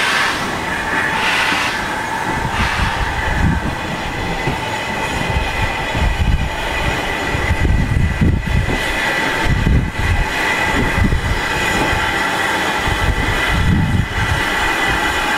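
LMS Ivatt 2MT tank engine No. 41312 working slowly under steam: at first hissing exhaust beats a little over a second apart, then a steady rumble of the engine rolling over the rails.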